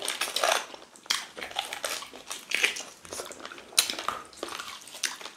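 Close-miked eating sounds of people chewing meat and fufu with ogbono soup by hand: irregular wet chewing, smacking and biting noises, a few sharper ones standing out.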